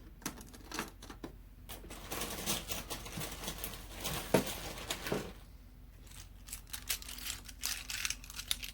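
Plastic mechanical pencils being handled, with many quick irregular clicks and clatter as they knock together and are set down, and some rustling.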